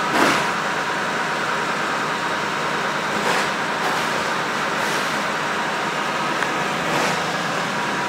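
Snow shovel scraping over a snow-covered sidewalk several times, the first stroke the loudest, over a steady background noise.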